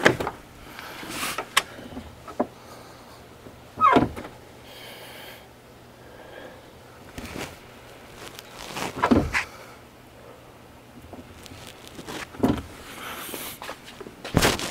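Brake pedal of a 2001 Ford F250 Super Duty being pumped, with clunks from the truck's cab: scattered clunks and clicks a few seconds apart, the loudest about four and nine seconds in. The pumping pushes the pressed-in front caliper pistons back out against the pads.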